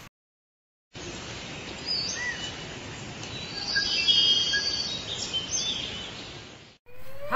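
After about a second of silence, steady outdoor background noise with a few short bird chirps and calls in the middle; it fades out near the end.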